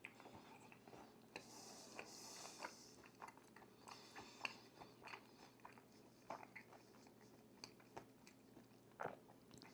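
Close-up chewing and biting of food: soft crunches and wet mouth clicks, with a brief hiss about a second and a half in.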